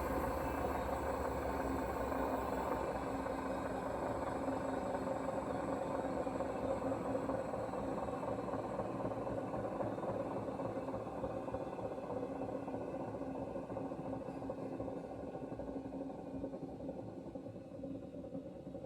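Hoover washing machine running with a steady humming, rumbling noise with a rattle in it, slowly getting quieter over the last several seconds. The owner suspects a failing drum bearing or the motor.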